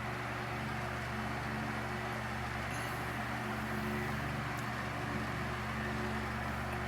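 Electric fan running steadily, its motor giving a constant low hum under the rush of air from the blades.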